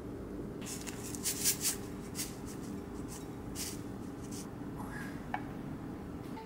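A ceramic plate and a wooden serving board handled and slid across a cloth-covered table: short rustles and scrapes, the thickest cluster about a second in, and a light click near the end, over a steady low hum.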